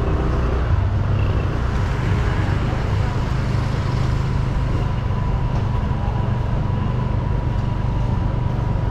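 City street traffic: a steady low hum of vehicle engines, with a thin steady whine running through it from about a second in.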